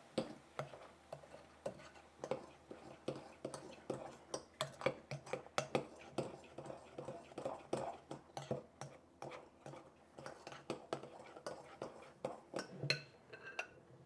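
Metal whisk stirring a wet baking-soda and washing-soda paste in a glass mixing bowl, clicking and scraping against the glass in quick, irregular strokes.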